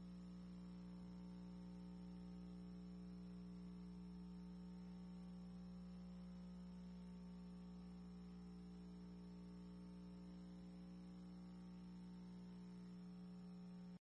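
Near silence: a faint, steady electrical hum with no other sound.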